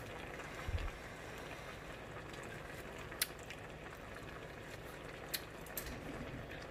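A pan of vegetables simmering on the stove: a steady, quiet bubbling hiss, with a soft low thump about a second in and a few faint clicks.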